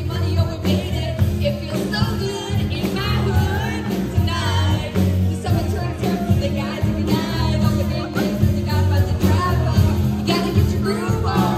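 Live cover band playing an upbeat R&B dance song, with bass and drums under a woman singing into a handheld microphone.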